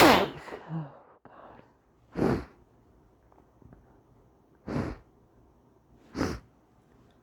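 A person sneezes loudly right at the start, the voice falling in pitch. Three short breathy bursts follow, spaced a few seconds apart.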